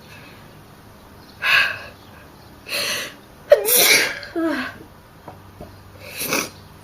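A person's sneeze, brought on deliberately. Two breathy bursts lead up to it, the loud sneeze comes with a short voiced cry about three and a half seconds in, and another breathy burst follows near the end.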